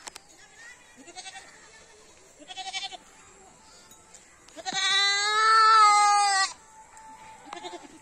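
Goats bleating: a few faint, short bleats in the first three seconds, then one loud, long bleat lasting nearly two seconds just past the middle, and another short bleat near the end.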